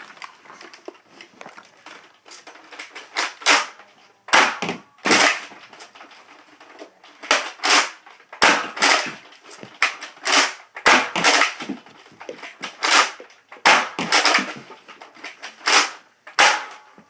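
Nerf Rival Atlas pump-action foam-ball blaster being pumped and fired over and over: a series of sharp, hissing snaps, often two in quick succession, every second or two.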